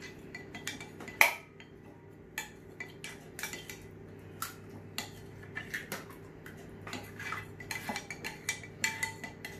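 A utensil clinking and scraping against a mixing bowl in irregular taps as brownie batter is stirred, one knock about a second in louder than the rest, over a steady low hum.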